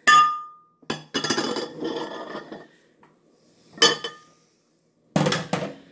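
Glass measuring cup clinking and clattering as it is set down into a ceramic dish: a sharp ringing clink at the start, a second or so of clatter, another ringing clink around the middle, and a last short clatter near the end.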